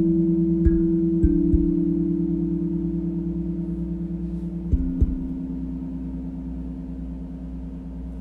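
Steel tongue drum played slowly: a few notes struck and left to ring, overlapping and gradually fading.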